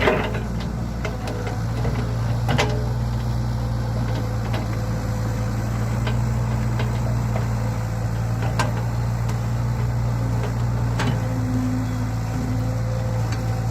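Excavator's diesel engine running steadily, with a few sharp knocks scattered through.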